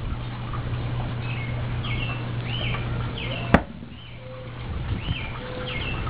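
Birds chirping, short rising-and-falling calls repeated about twice a second. Under them a low steady hum runs and stops at one sharp click about three and a half seconds in.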